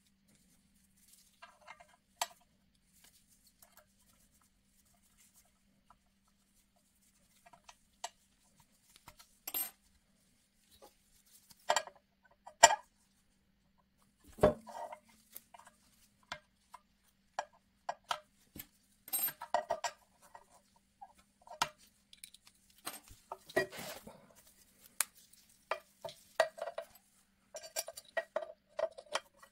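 Metal parts of a small flywheel and generator rig clinking and knocking as they are handled and fitted by hand: an aluminium timing pulley and a small DC motor in its aluminium bracket set against an aluminium base plate. The clicks and taps are scattered at first and come more often in the second half.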